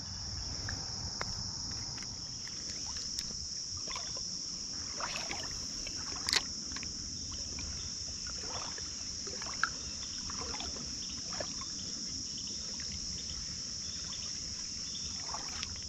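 Steady high-pitched insect chorus of crickets over the low wash of creek water, with occasional light splashes and clicks and one sharper click about six seconds in.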